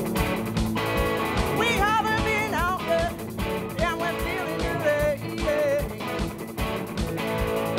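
Live rock band playing: a steady drum beat under bass, keyboard and electric guitars, with a lead melody line bending and wavering in pitch over the top from about two seconds in.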